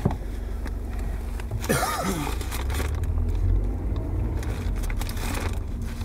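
Car's engine and road rumble heard inside the cabin as the car moves off slowly to park. About two seconds in comes a brief rustle with a short squeak that rises and falls in pitch.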